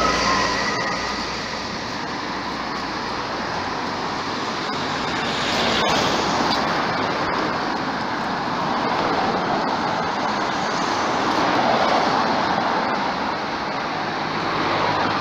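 Steady rushing noise of passing vehicles, swelling and fading over several seconds.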